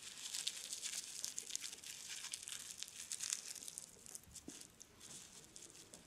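Cigarette rolling paper and dried tobacco crinkling and rustling between the fingers as a cigarette is hand-rolled. The quick small crackles ease off briefly past the middle, then pick up again.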